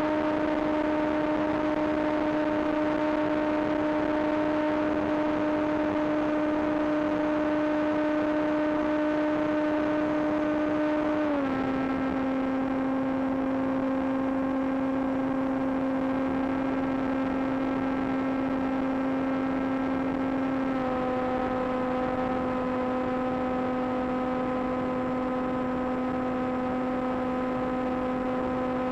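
Brushless electric motor of a Hobbyking AXN Floater Jet model plane running as a steady whine over hiss. Its pitch steps down about eleven seconds in and again about twenty seconds in as the throttle is eased back and the plane slows.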